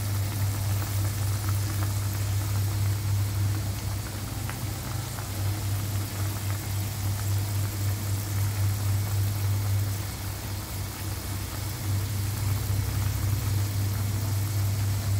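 Pork adobo simmering in a wok, the sauce bubbling with an even hiss and faint pops, over a loud, steady low hum.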